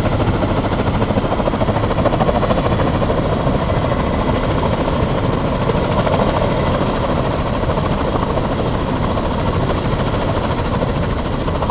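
Kamov coaxial-rotor naval helicopter hovering over a ship's bow: steady rotor and turbine noise.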